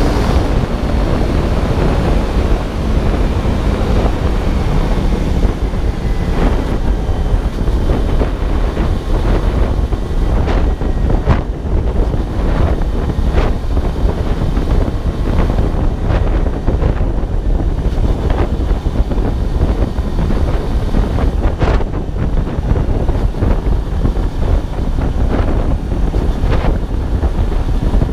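Wind rushing over the microphone as a Kawasaki ZZR250 motorcycle cruises at road speed, its parallel-twin engine mostly buried under the wind noise.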